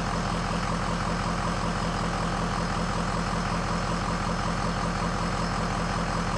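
Ford 6.0-litre Power Stroke V8 turbo-diesel idling steadily shortly after start-up, with the glow plugs still drawing power and the alternator not yet charging.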